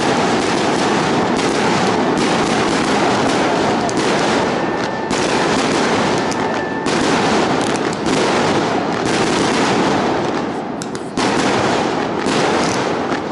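Fireworks going off in a dense, continuous run of rapid bangs and crackling.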